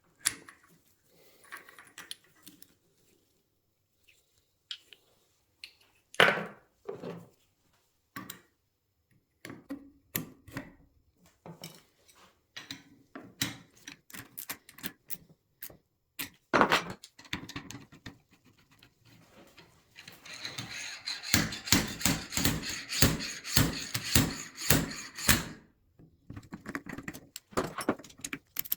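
Small metal parts of a motorcycle brake caliper clicking, tapping and clinking as the caliper is stripped down by hand, with a quick run of scraping strokes, about three a second, for several seconds near the end.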